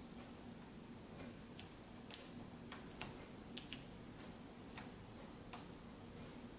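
Faint, scattered small clicks and taps from handling a laptop display cable connector as it is pushed into the back of a new LCD panel, about six over four seconds, the loudest about two seconds in.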